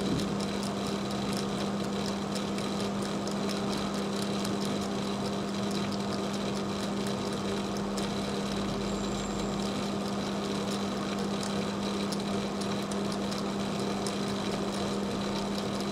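A steady machine hum, with faint, irregular light scratching from a blade scraping the enamel insulation off a fine wire to bare a spot of copper.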